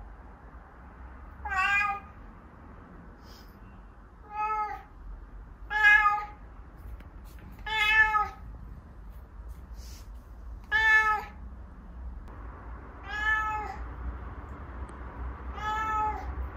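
An elderly 16-year-old house cat meowing seven times, drawn-out 'aaao' and 'a-ung' calls each lasting under a second and rising then falling slightly in pitch, a second or two apart.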